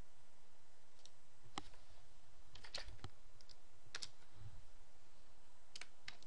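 Faint, irregularly spaced clicks from someone operating a computer, about a dozen over a few seconds, over a steady low hum.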